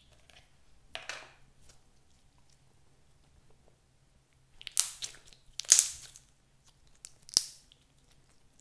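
Blue-and-red slime squelching and crackling as hands pull it from its tub and stretch and fold it: a short crackle about a second in, then three louder wet crackles in the second half.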